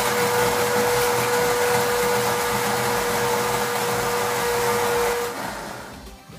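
De'Longhi electric coffee grinder running with the lid held down, grinding coffee beans: a steady high motor whine over a grinding rattle. It cuts off about five seconds in and the motor spins down.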